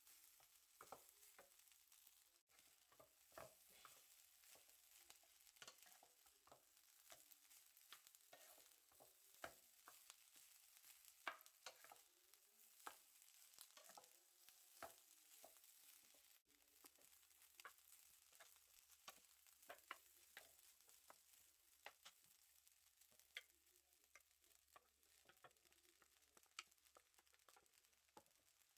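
Fried rice being stir-fried in a pan: a spatula scraping and tapping at an irregular rate over a faint sizzle.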